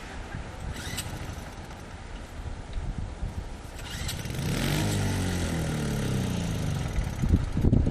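An engine running, its pitch falling steadily over about three seconds in the second half, with loud low knocks near the end.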